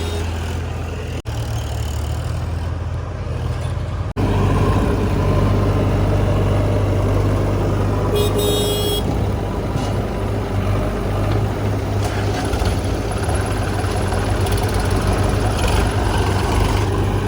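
Heavy diesel engine of earthmoving machinery running steadily under work, getting louder about four seconds in after a brief dropout. A short high-pitched tone sounds over it about eight seconds in.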